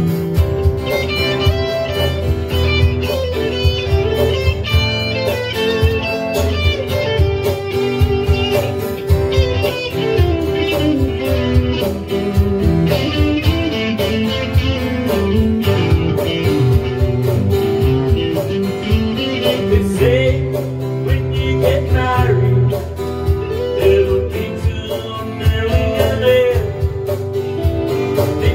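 Two guitars played together in a live jam, among them a red electric guitar, with sustained chords under a lead line whose notes slide and bend.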